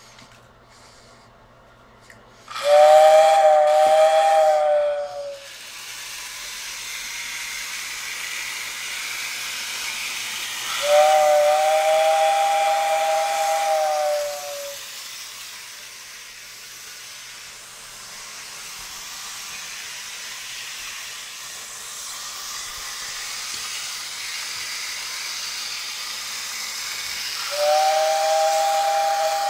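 Steam whistle sound from a Bachmann Wayward freight house model railway accessory: three two-tone whistle blasts, about three seconds in, about eleven seconds in and near the end, each sagging slightly in pitch as it stops. A steady steam hiss runs beneath and between them.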